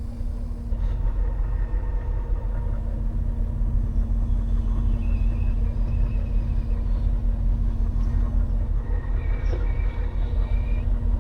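Semi-truck's diesel engine running as the rig moves off, a steady low rumble with a constant hum. A faint high tone comes and goes twice.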